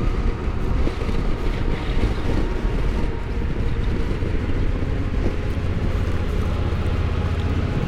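Strong gusting wind buffeting the microphone over a Honda Africa Twin's parallel-twin engine running at low speed. A steady low engine hum becomes clearer in the second half.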